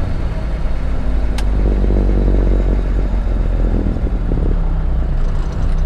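A 1987 International Paystar dump truck's engine running under way, heard from inside the cab as a steady low drone. A rougher stretch runs through the middle, and the engine note changes about four and a half seconds in.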